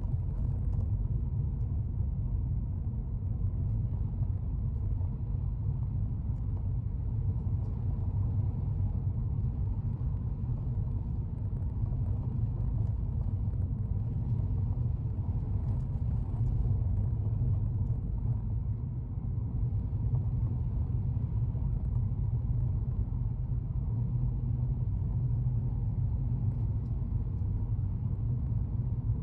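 Steady low rumble of a car being driven, engine and road noise heard from inside the vehicle.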